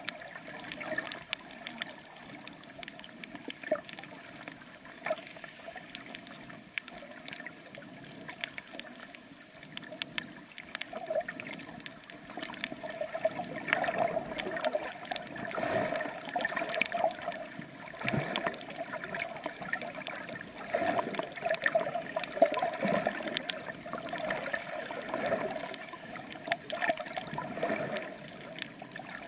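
Water gurgling and sloshing around a swimmer snorkeling along a coral reef, with scattered short clicks. It gets busier from about halfway through.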